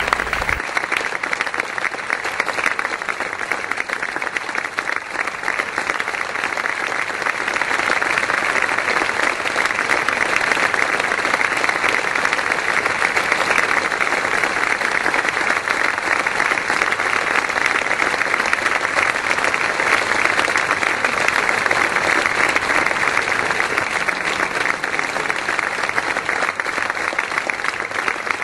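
Steady applause from a crowd, many hands clapping without a break.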